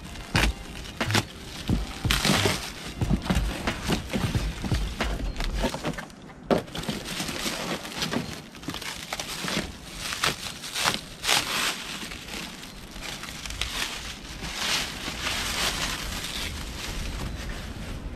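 Parcel packaging being opened and handled by hand: an irregular run of rustling, crinkling and tearing, with a sharp knock about six seconds in.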